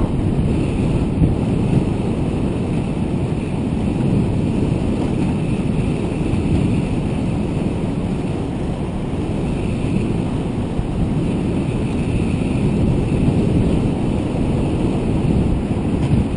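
Steady wind noise buffeting the microphone of a camera mounted on a moving bicycle's handlebars.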